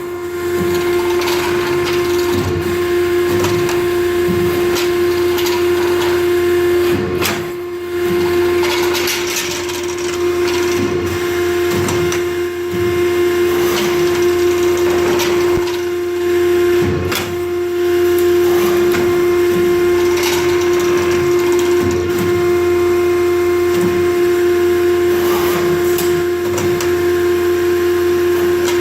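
Pines #040 CNC tube bender running: a steady machine tone throughout, with scattered short knocks as the machine works through its cycle.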